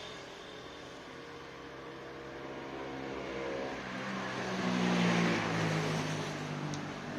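A motor running, its pitch shifting and its sound growing louder about five seconds in.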